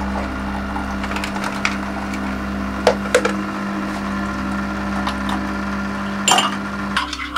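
Yacht's inboard engine running steadily at idle, with scattered clicks and knocks on board and a louder clatter about six seconds in.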